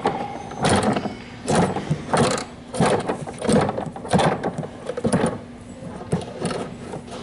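Hand-worked exhibit mechanism with balls clattering in a regular rhythm, about one knock every two-thirds of a second, as the balls jam inside it.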